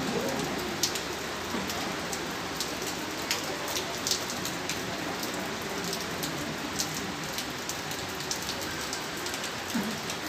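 Steady rain falling on wet paving and puddles, with many sharp, irregular drop ticks close by.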